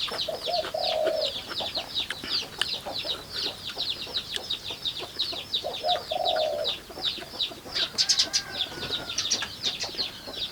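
Birds singing: a fast, steady run of high chirps, about four or five a second, with two short lower calls about a second in and again about six seconds in.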